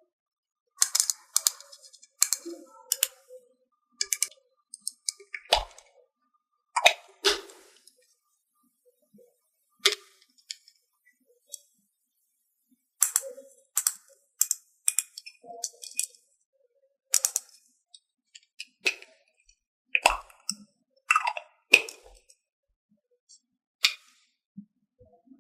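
Small plastic toy play-food pieces clicking and tapping as they are handled and set down, in irregular sharp clicks, some in quick clusters, with silence between.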